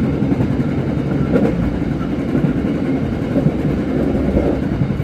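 Passenger train running, heard from inside the coach: a steady low rumble of the wheels on the rails.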